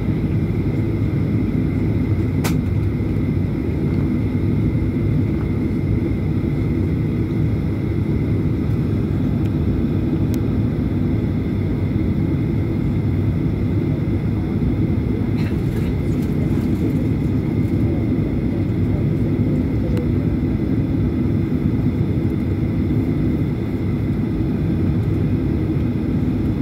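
Airliner's jet engines running at idle, heard inside the cabin: a steady low rumble with a thin steady whine above it. There are a couple of faint clicks, about two and ten seconds in.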